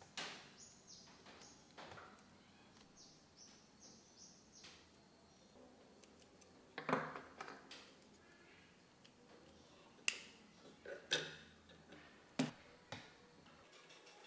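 Hand metal snips cutting a thin metal strip: lighter clicks and taps at first, then a loud sharp click about seven seconds in and three more sharp snips about a second apart near the end.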